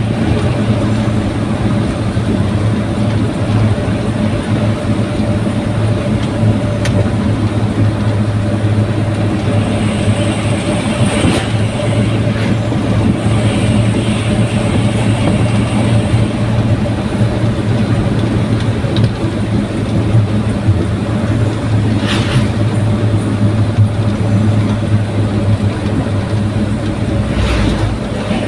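Daihatsu Gran Max pickup under way, its engine and exhaust droning steadily, with a few brief knocks along the way.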